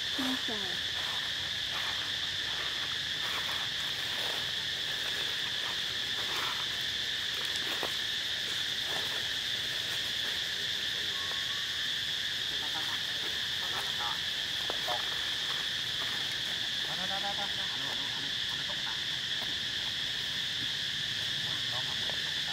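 A steady, high-pitched drone of insects calling in chorus, running unbroken at an even level. A few short, faint voice-like sounds come and go about three-quarters of the way through.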